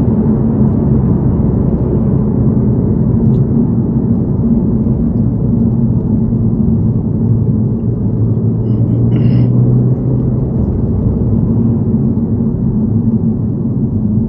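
Steady road and engine noise inside a car's cabin at highway speed: a low, even rumble with a steady hum.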